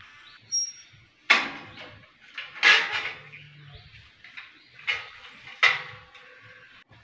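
Stainless-steel railing gate being opened: a few loud metal clanks and rattles, several with a short ring after them.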